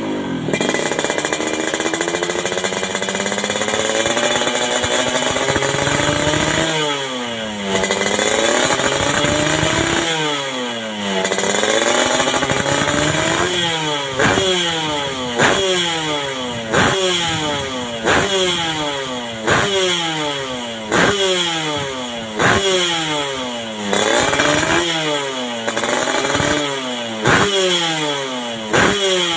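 Yamaha RX-King's single-cylinder two-stroke engine revving through a custom under-belly racing exhaust. It first climbs slowly in pitch and drops back, then from about halfway through it is blipped over and over, about every one and a half seconds, each blip jumping up sharply and sinking back down.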